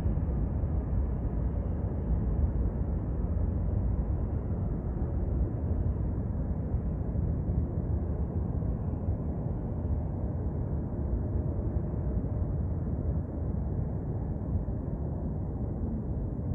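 Distant jet airliner engines rumbling at the airport, a steady low noise that eases off slightly in the second half.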